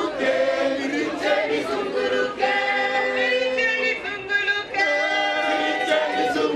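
Church choir of men and women singing a hymn together in harmony, with long held notes.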